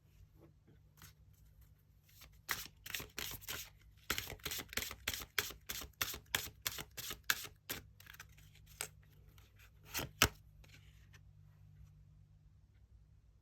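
Tarot cards being handled on a table: a quick run of crisp card clicks and slaps, about three or four a second, then a few scattered ones and one sharp tap near the end.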